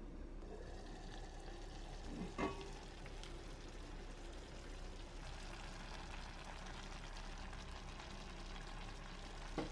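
Rice porridge simmering and bubbling in a cast-iron pot, with a knock of the heavy lid about two and a half seconds in as it is lifted off, and another short knock at the very end.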